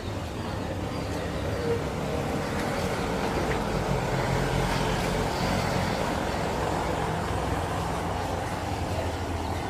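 Small diesel light locomotive running light along the track towards the listener, a steady low engine hum that grows a little louder as it nears.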